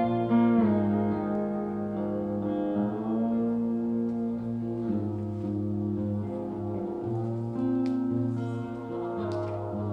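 Pedal steel guitar and electric guitar playing an instrumental passage together. Long held notes slide up and down in pitch.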